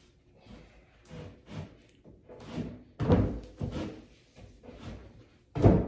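Knocks and thuds of flat-pack furniture parts being handled and fitted together. The loudest come about three seconds in and near the end.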